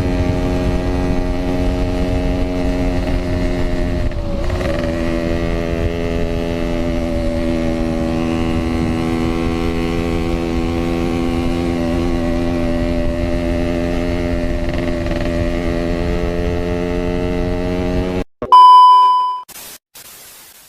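Yamaha RX King 135cc two-stroke motorcycle engine running at a steady speed, its note dipping briefly about four seconds in. Near the end the sound cuts off suddenly and a loud, short electronic beep follows.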